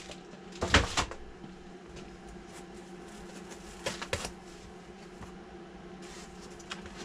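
Handling noises of a presentation box and its foam insert being unpacked by hand: a sharp rustle and knock about a second in, then two light clicks around four seconds, over a steady low hum.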